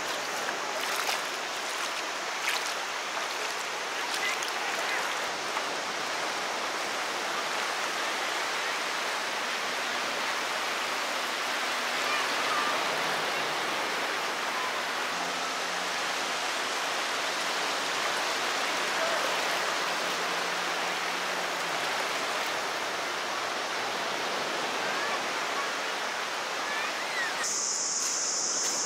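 Small waves washing in over shallow water on a sandy beach: a steady rush of surf. About a second before the end it gives way to a steady, high-pitched insect drone.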